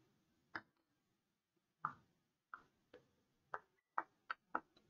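Chalk writing on a chalkboard: a scattering of faint, short clicks and taps as the chalk strikes the board, about eight in all at an uneven pace.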